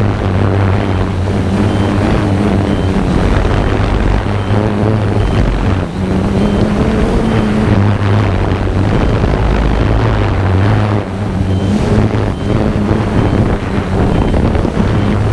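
Small camera drone's propellers running steadily as it hovers low, heard up close from its onboard camera, with wind noise on the microphone.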